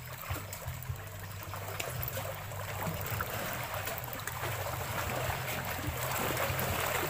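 Small lake waves lapping and splashing against shoreline rocks, a steady watery wash that grows slightly louder toward the end.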